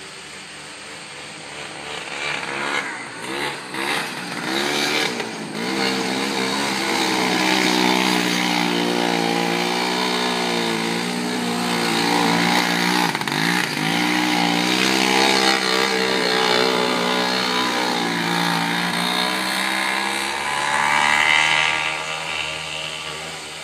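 Engine of a Honda single-seat off-road buggy revving up and down as it slides in circles on loose dirt, its pitch rising and falling over and over. It grows louder a few seconds in and fades near the end.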